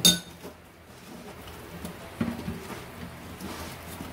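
A metal spoon clinks once against a bowl with a brief high ring, the loudest sound. It is followed by soft wet handling noises and light knocks as a raw duck is worked by hand in a steel bowl.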